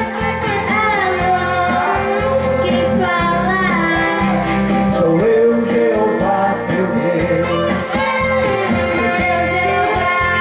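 Live singing by a man and a girl into microphones over a guitar-led accompaniment.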